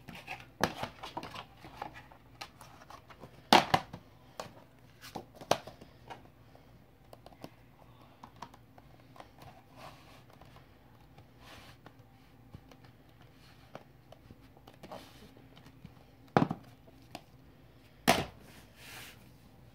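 Hands handling and opening a plastic DVD case: scattered clicks and rustles, with a few sharper snaps.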